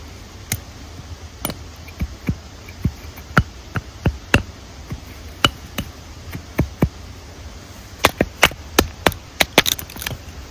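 Hatchet chopping into a dead tree trunk: a string of sharp knocks at about two a second, quickening into a fast run of blows near the end.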